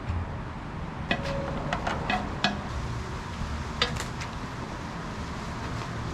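Light metallic clinks and taps, about eight of them in the first four seconds, some ringing briefly, over a low steady rumble: steel pieces and tools being handled.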